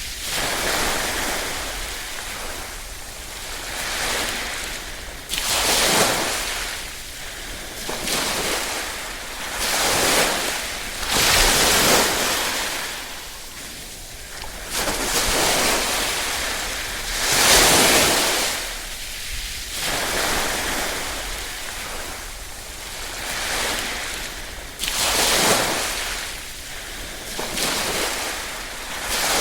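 Small waves lapping on a shore, a soft hiss that swells and falls back every two or three seconds, with somewhat stronger wash-ups about a quarter, two fifths, three fifths and five sixths of the way through.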